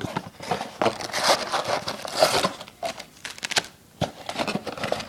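Crinkling, rustling and tearing of packaging in irregular bursts as a blaster box of trading cards is opened and its foil-wrapped card packs are pulled out.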